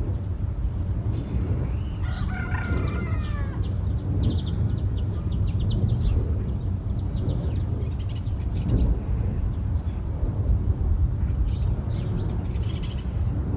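Steady low rumble of wind turbines more than a kilometre away, heard through a phone's microphone. About two seconds in, a rooster crows once, and small birds chirp now and then over the rumble.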